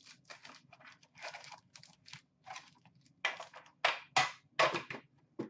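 Foil-wrapped Upper Deck hockey card packs crinkling and rustling as they are handled and stacked, in a run of irregular crackles that grows louder past the middle.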